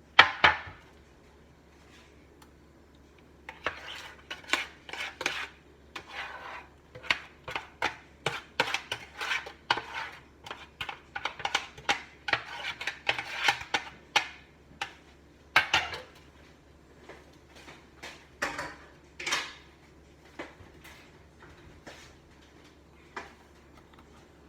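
A kitchen utensil scraping and clinking against mixing bowls and a baking pan in many short strokes that come in quick runs, with a loud knock at the very start: cake batter being scraped out into one pan.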